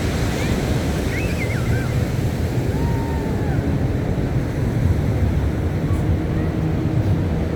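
Wind buffeting the microphone over the steady wash of surf, with a few faint, short, high gliding calls.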